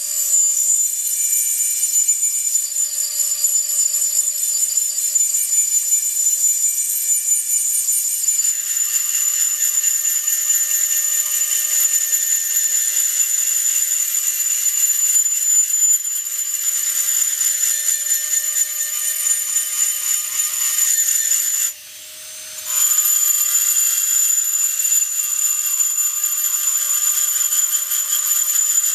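High-speed rotary engraving handpiece whining steadily as its burr grinds into glass, with a gritty rubbing over the constant high tone. The sound breaks off for about a second roughly three-quarters of the way through, then resumes.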